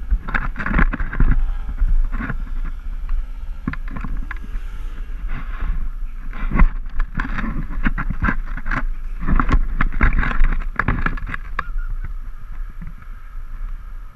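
ATV engine running over a rough sandy trail, its pitch rising and falling now and then, with frequent knocks and wind buffeting on the microphone.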